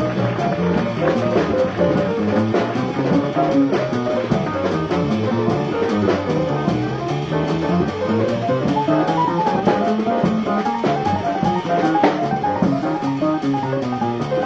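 Live small-group jazz playing a blues, with digital piano, upright bass and drum kit. It is a cassette recording with poor fidelity, the top end cut off.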